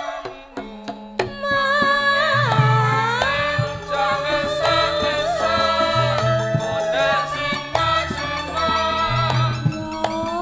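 Javanese langgam Sragenan music from an orkes melayu band: a few sharp drum strokes open, then a sliding melody line runs over a steady, repeating bass.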